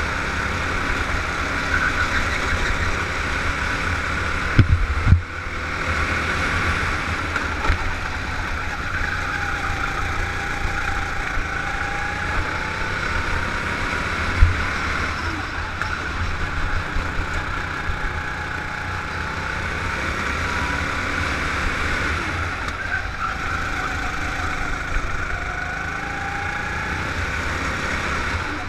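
Go-kart engine heard from the driver's seat while lapping, its pitch rising and falling with the throttle through the corners, over a constant low rumble. A few sharp thumps stand out about five seconds in and again about halfway.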